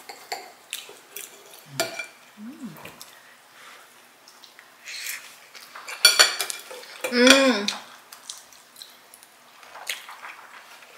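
Metal knife and fork clinking and scraping on a ceramic plate while cutting and eating a crêpe, in scattered small clicks with a louder scrape about six seconds in. A brief vocal sound follows about seven seconds in.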